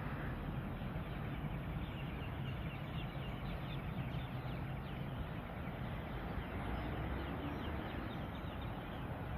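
Birds chirping: many short, quick, falling calls over a steady low background rumble.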